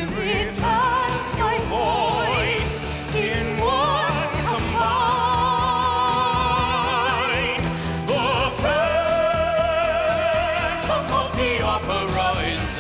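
Female operatic soprano singing a wordless vocal line with wide vibrato: rising runs up to long, held high notes, over a musical accompaniment.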